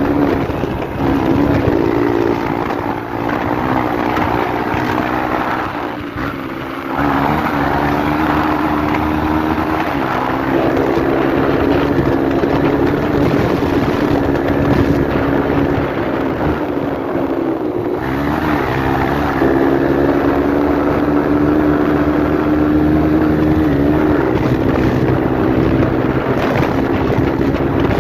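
Honda Bros 160 motorcycle engine running with a deep exhaust rumble, steady apart from brief dips in level and pitch about six seconds in and again around eighteen seconds.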